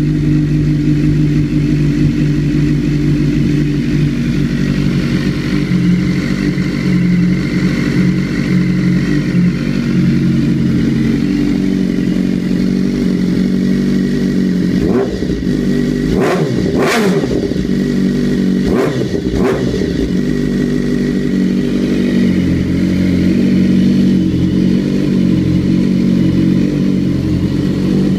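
BMW S1000RR inline-four engine idling through an Akrapovič Shorty full exhaust system. A little past halfway it gets a few quick throttle blips, each rising and falling back to idle.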